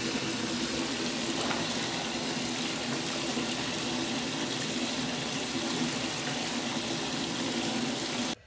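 Water running from a tap into a bubble-filled bathtub, a steady rush that cuts off suddenly near the end.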